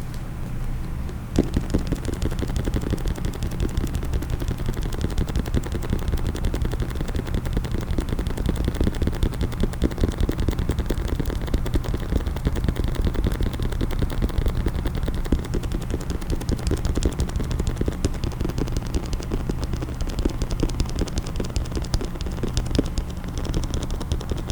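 Fast, continuous tapping on a hard case, starting about a second in, over a steady low hum.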